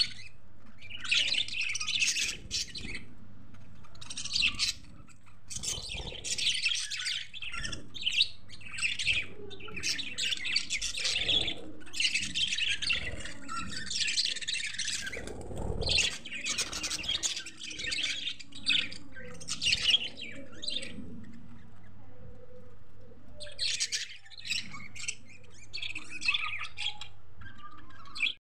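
A flock of budgerigars chattering and chirping together, a dense fast warble that comes in bouts with brief lulls between them.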